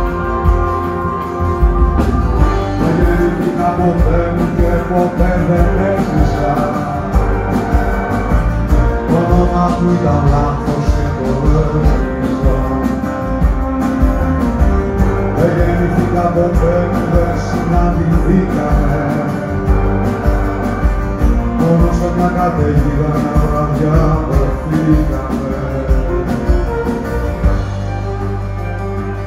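Live music with acoustic guitar and violin playing.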